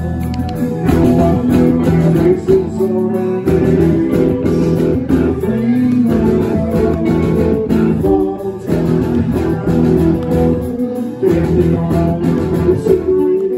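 Live rock band playing an instrumental passage, led by electric guitars over bass and drums.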